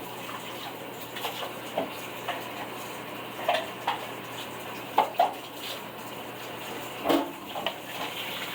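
Kitchen things being handled: scattered light clicks and taps, a dozen or so at irregular intervals with the sharpest around the middle and near the end, over a steady hiss.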